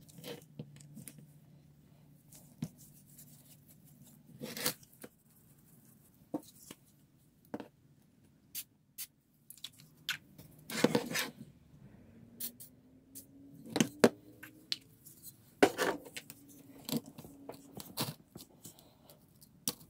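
Irregular metal clicks, clinks and short scrapes of a screwdriver working the screw of a rusty cast iron bench vise's jaw plate, with the vise and loose parts being handled on the bench. Several louder knocks come in the second half.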